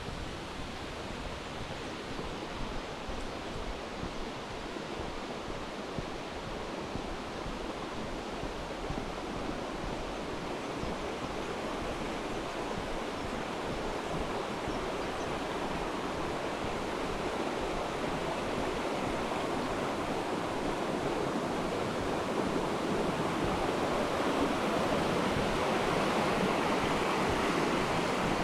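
Steady rush of falling water from a waterfall, growing gradually louder toward the end.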